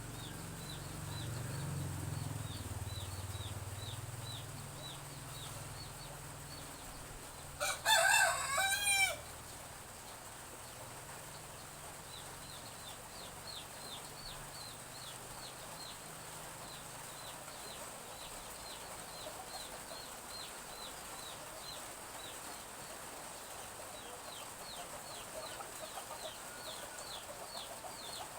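A rooster crows once, about eight seconds in, the loudest sound here, lasting about a second and a half. Chicks keep up quick, high, falling cheeps throughout. A low rumble runs underneath for the first several seconds.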